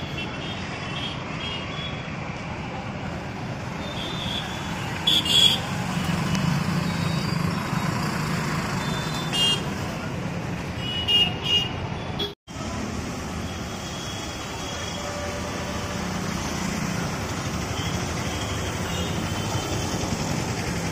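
Street traffic at a busy junction: a bus, auto-rickshaws and motorbikes running past, with short vehicle-horn toots about five seconds in and again around eleven seconds. The sound drops out for an instant just after twelve seconds.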